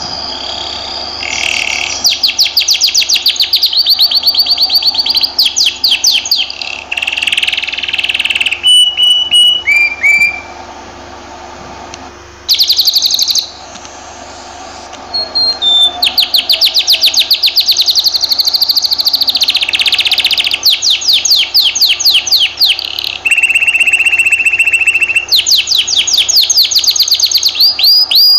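Domestic canary singing long, fast trills of rapidly repeated notes, with a pause a little before the middle and a steady held note about two-thirds of the way through.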